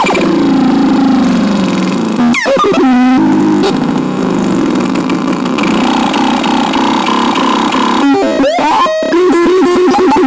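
Synthesizer playing held electronic tones that shift in pitch, broken by quick sweeping pitch glides about two seconds in and again near the end.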